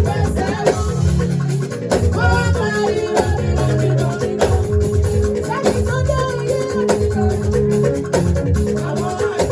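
Upbeat praise music with a steady beat, shaken rattle percussion, bass and singing.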